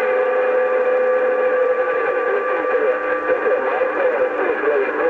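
CB radio receiver audio on 27 MHz: several steady whistling tones over warbling, garbled signal. This is typical of stations transmitting over each other on the channel.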